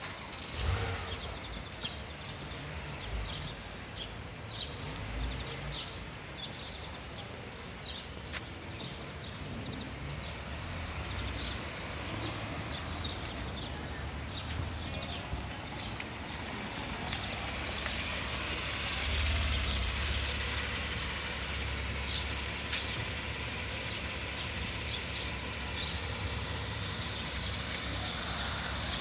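Porsche 911's flat-six engine running at low speed as the car creeps and manoeuvres. Its low hum grows louder in the second half, and birds chirp over it.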